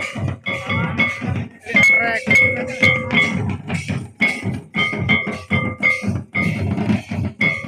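Live folk dance music: two-headed barrel drums beat a quick, even rhythm of about four strokes a second, with a held, pitched melody line over the drums.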